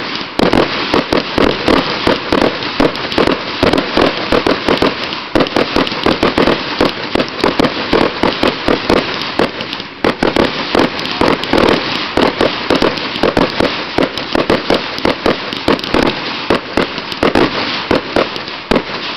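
Fireworks display firing a dense barrage: rapid, overlapping bangs and crackles of aerial shells launching and bursting, several a second without a pause.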